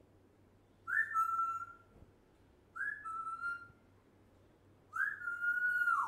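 African grey parrot whistling three times. Each whistle is a quick upward swoop into a held note. The third is the longest and drops in pitch at its end.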